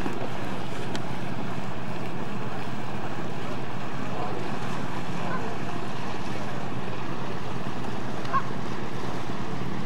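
Steady wind noise on the microphone over a constant low hum, with a brief faint chirp about eight seconds in.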